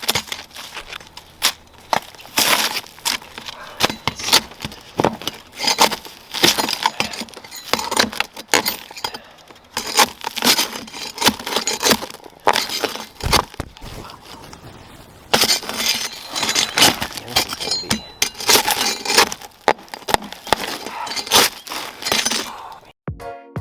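Asphalt roofing shingles being pried and scraped off a shed roof with a shingle scraper: irregular sharp cracks, crackles and scrapes as the shingles tear loose.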